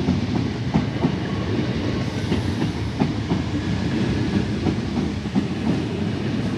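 Two coupled Class 455 electric multiple units passing, a steady rumble with wheels clicking irregularly over rail joints.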